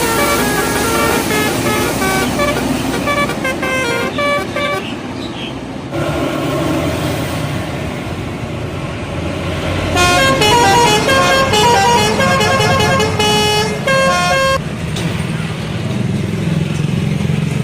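Indonesian bus telolet horn, a multi-trumpet musical air horn, playing quick melodic runs of stepped notes: once through the first five seconds or so, and again, louder, from about ten to fourteen and a half seconds in. Between and after the runs there is only vehicle and road noise.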